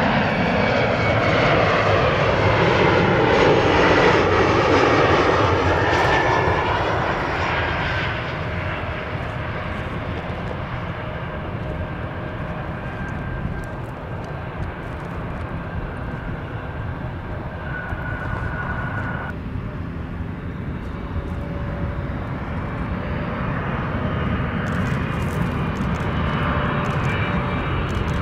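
SkyWest CRJ-200 regional jet's engines passing close, loudest about four seconds in, their whine sliding down in pitch as it goes by, then a steadier jet engine sound. After a cut about two-thirds of the way through, a Boeing 777's engines are heard, steady and more distant.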